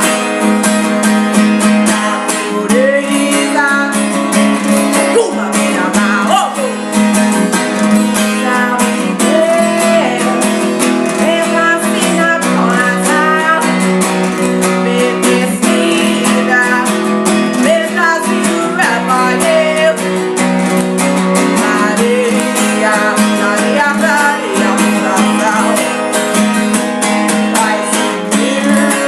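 Acoustic guitar strummed steadily, with a singing voice carrying a melody over it at times.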